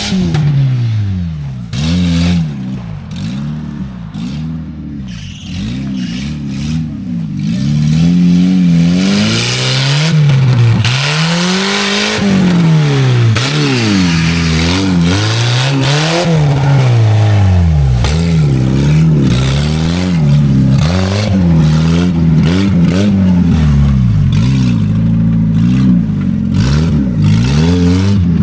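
Off-road vehicle's engine revving up and down over and over, a rise and fall every second or two, with a rougher, noisier sound joining in from about eight seconds in.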